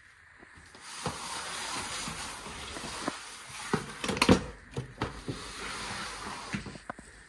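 Clothes rustling as laundry is taken out and handled, with a few knocks and clicks around the middle.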